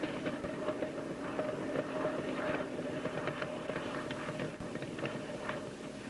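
Modified Grumman F8F-2 Bearcat's radial piston engine running with a steady drone and scattered crackling.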